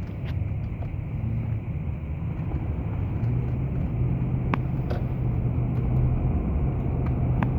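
Car engine and road noise while driving: a steady low hum that grows a little louder, with a few short sharp clicks, at the start, about four and a half seconds in and near the end.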